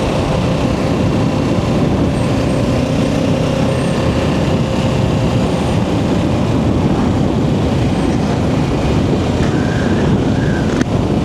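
Wind rushing over the microphone on a moving motorcycle, a Kawasaki Ninja 650, with its parallel-twin engine running steadily underneath.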